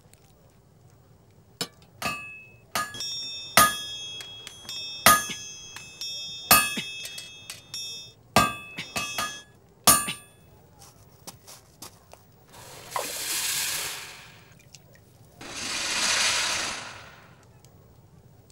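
Blacksmith's hammer striking a hot steel blade on an anvil, about ten ringing blows at an uneven pace. Then come two long hisses, a couple of seconds each: the hot blade being quenched.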